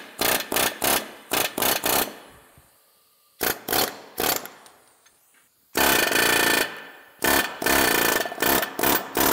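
Pneumatic air hammer run against a row unit's pivot. It fires in short trigger bursts, pauses twice, then runs for about a second and finally in a longer stretch broken by brief gaps near the end.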